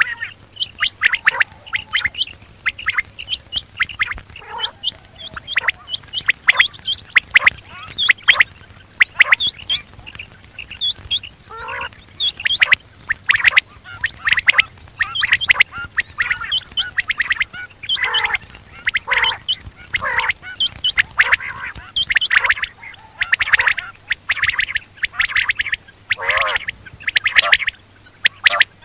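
Quail calling over and over in quick runs of short, sharp notes, with brief gaps between the runs.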